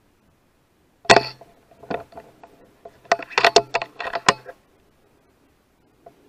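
Close, sharp metallic clicking and clinking handling noise at the rifle and scope: a quick cluster about a second in, then a faster run of clicks from about three to four and a half seconds in.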